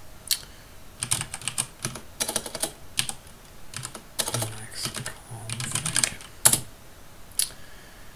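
Typing on a computer keyboard: quick runs of keystrokes separated by short pauses, with a few single, sharper key presses in the last couple of seconds.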